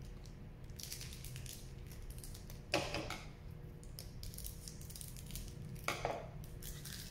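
Scissors cutting open a foil booster-pack wrapper, with the wrapper crinkling. Two sharper, louder crackles come about three seconds apart.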